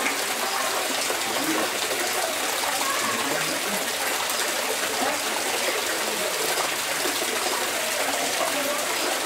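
Steady rush of running water, with indistinct voices of people talking underneath.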